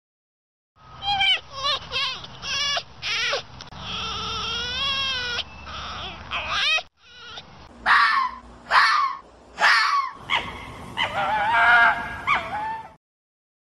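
Red fox calling: a run of short, sharp high calls, then a longer call that wavers in pitch. After a brief break, more short calls follow and end in another long wavering call.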